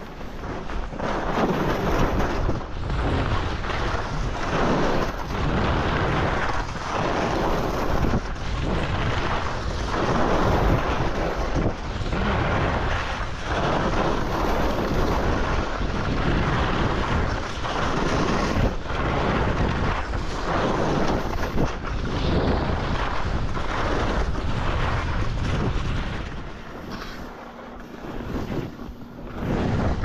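Skis scraping and carving on packed snow during a fast downhill run, swelling and fading with each turn, under heavy wind noise on the microphone. It quietens a few seconds before the end.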